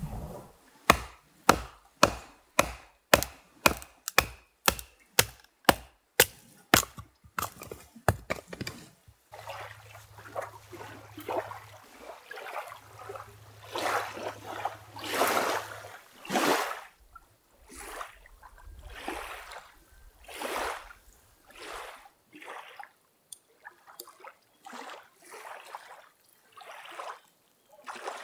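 Small waves lapping and washing on a sandy lakeshore, a soft wash about once a second. Over the first eight seconds or so there is also a run of sharp, evenly spaced clicks, about two a second, closing up toward the end of the run.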